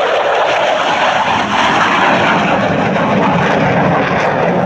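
F-16 Fighting Falcon jet fighter flying past, its single jet engine a loud steady rush that sinks lower in pitch in the later seconds as the jet moves away.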